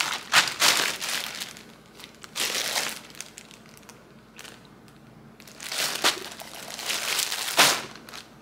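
Thin plastic garment bag crinkling in several bursts as it is handled and opened.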